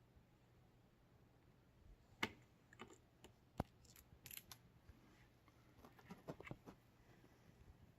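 Faint scattered clicks and light scrapes of small screws and a screwdriver being handled against the laptop's screen panel and plastic lid.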